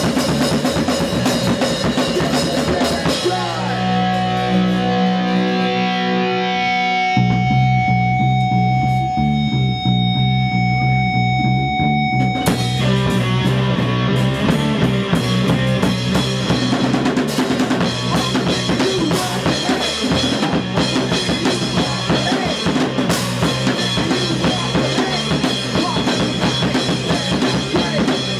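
Live rock band with electric bass, electric guitar and a drum kit, playing loud. About three seconds in the drums drop out and sustained bass and guitar notes ring on under a held high note. A little over ten seconds later the whole band crashes back in and plays on.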